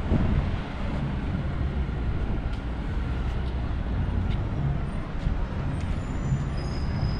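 Steady road traffic: car and bus engines running past along a busy street, with a low rumble throughout and a few faint high squeaks near the end.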